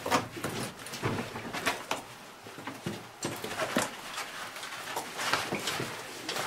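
Irregular scraping and knocking of a caver's boots, harness gear and tackle bag against rock while climbing up a narrow cave passage.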